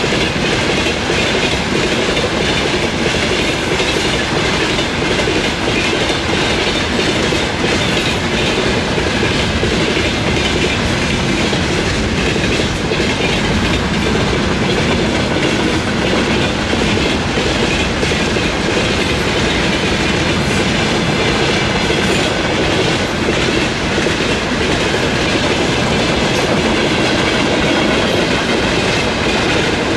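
Freight train wagons rolling past: a loud, steady rumble of steel wheels on rail with repeated clickety-clack over the rail joints.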